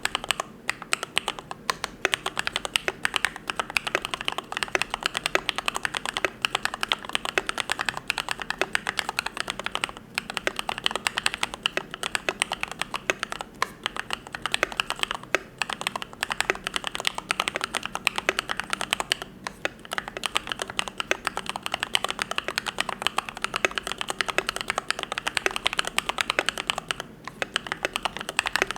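Fast, continuous typing on a YMD75 V3 custom mechanical keyboard fitted with lubed Gateron Yellow linear switches: dense key clacks with a few brief pauses.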